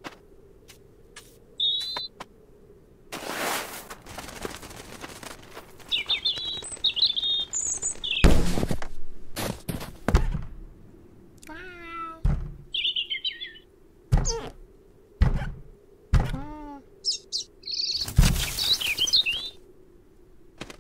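Cartoon sound effects: a small bird chirping in short bursts while a cat scrabbles and thuds against a wooden door again and again, with a couple of short falling cat cries between the thuds.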